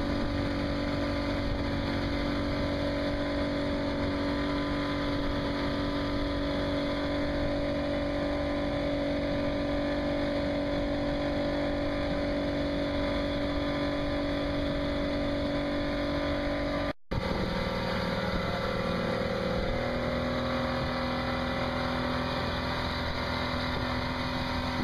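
A boat's motor running steadily under way, a constant drone over a steady hiss. It breaks off briefly about seventeen seconds in, then resumes at a lower pitch and climbs a little a few seconds later.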